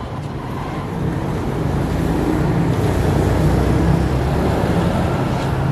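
A vehicle engine running nearby, a steady low rumble that grows louder over the first few seconds and then holds.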